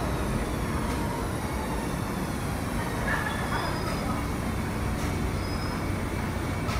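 New York City subway train rolling slowly into a station and coming almost to a stop: a steady rumble of wheels on the rails. A high whine falls in pitch as the train slows, and there are a few brief, faint squeals.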